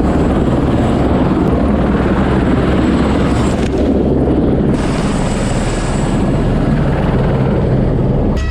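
Helicopter running: a loud, steady drone of rotor and engine.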